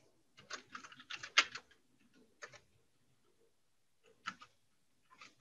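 Computer keyboard typing: a quick run of keystrokes in the first second and a half, then a few single key presses spaced out.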